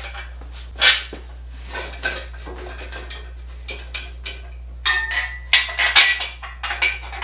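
Steel clanking and scraping as metal machine-moving skates and tools are worked under a heavy machine. A few separate knocks come first, then a quick flurry of clanks with a brief metallic ring in the last couple of seconds, over a steady low hum.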